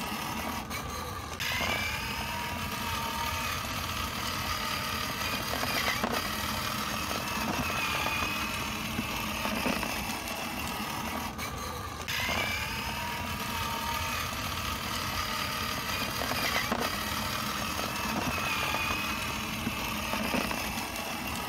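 Recorded motorcycle engine sound, running with rising and falling revs. The same stretch of about eleven seconds plays twice, so it is a repeating loop.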